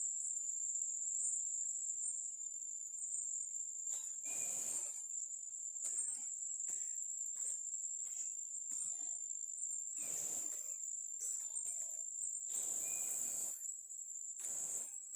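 Insects calling in a steady, unbroken high-pitched drone, with a few short bursts of noise over it about four, ten, thirteen and fifteen seconds in.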